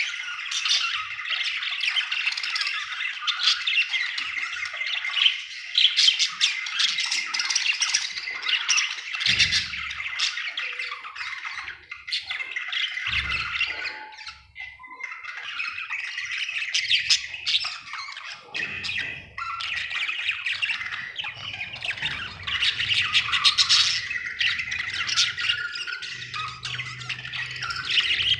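Budgerigar chattering and warbling continuously: a fast run of chirps, squawks and clicks.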